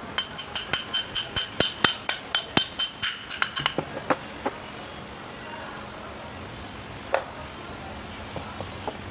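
Hammer striking a steel drift to drive a 6305 ball bearing onto the bevel gear of a Kubota B1502 front axle. A quick run of ringing metal taps, about five a second, lasts for the first three and a half seconds, then one more tap comes about seven seconds in.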